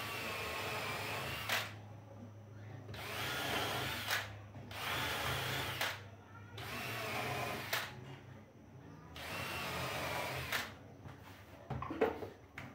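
Cordless drill whining in five short runs of a second or two each while it drills pilot holes and drives screws into a wooden rail, with a click as several runs stop. A few knocks near the end.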